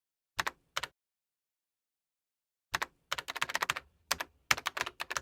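Quick, sharp clicks in bursts: two single clicks near the start, then a fast run of many clicks in the second half, with dead silence between the bursts.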